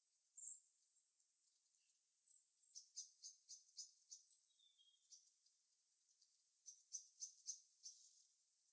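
Small birds chirping faintly: a few high, thin single calls and two quick runs of short chirps, about four a second, one near the middle and one near the end.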